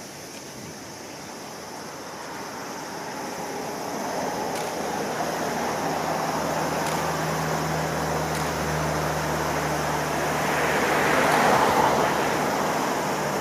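A car passing close on the road, its tyre and engine noise swelling over several seconds to a peak near the end and then easing. Under it, a low steady hum in the middle of the stretch as a Utsunomiya Lightline tram approaches along the track beside the road.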